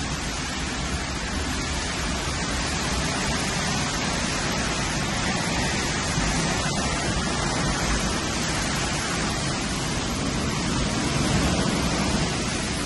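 A windstorm: strong wind driving rain makes a steady rushing noise, heavy in the low end, that swells slightly near the end.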